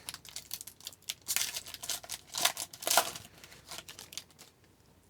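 Trading cards and a foil pack wrapper being handled: a string of short crinkles, rustles and snaps that stops about four and a half seconds in.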